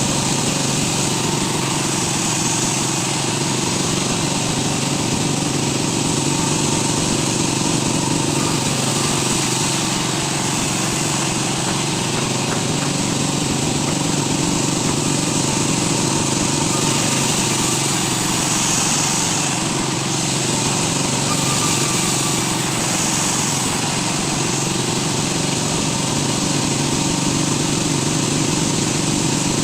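A woodworking machine's motor running steadily: a continuous, even mechanical drone with a low hum that does not change throughout.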